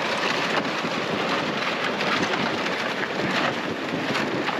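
Loaded ice-fishing sled dragged over bare lake ice: a steady, gritty scraping hiss.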